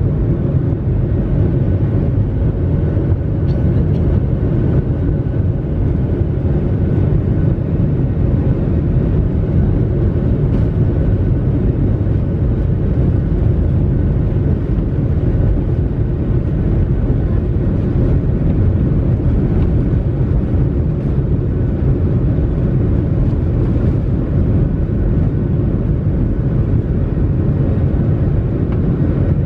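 Steady cabin noise inside a Boeing 737 on the runway: the jet engines and the low rumble of the aircraft rolling on the ground, with a faint steady hum over it.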